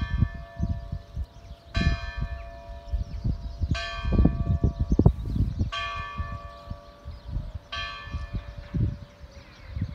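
Church bell tolling from a stone bell tower, five slow strikes about two seconds apart, each ringing on and fading before the next.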